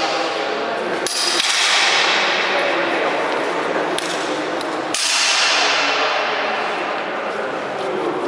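Steel longswords striking each other, twice, each clash ringing out and echoing through a large hall, over a background of indistinct voices.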